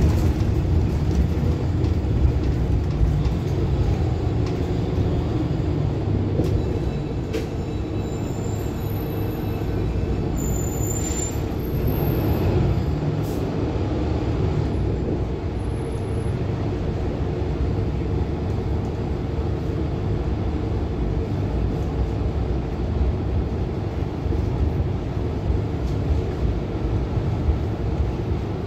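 Steady running noise of a Mercedes-Benz Citaro Hybrid city bus while driving, heard inside the passenger cabin: drivetrain and road noise.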